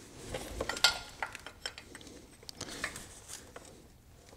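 Faint metallic clinks and taps of a 17 mm end wrench being fitted onto an engine coolant temperature sensor, the loudest about a second in.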